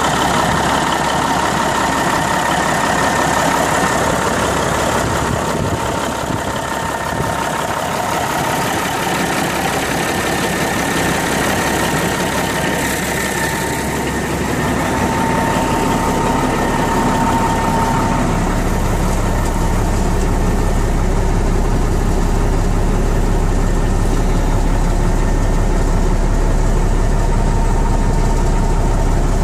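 1993 Peterbilt log truck's diesel engine idling steadily, heard up close at the open engine bay and then from inside the cab, where a deep low rumble takes over from about two-thirds of the way in.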